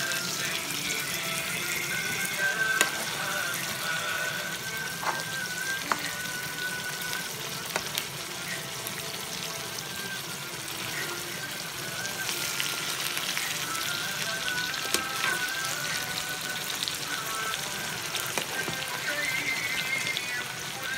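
Masala fish curry with mushrooms and peppers sizzling in a frying pan, a steady crackle with scattered sharp ticks. Soft background music with held notes plays over it.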